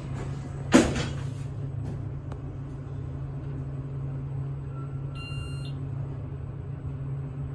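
Traction elevator cab in motion, a steady low hum throughout. A sharp thump just under a second in, and a short electronic chime about five seconds in as the cab reaches the lobby floor.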